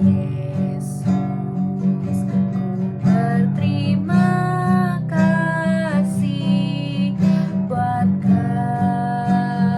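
Music: an acoustic guitar strummed in a steady rhythm, with a held melody line over it.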